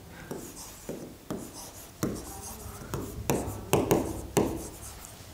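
Stylus writing on an interactive smart-board touchscreen: a series of irregular light taps and short strokes as a word is written by hand.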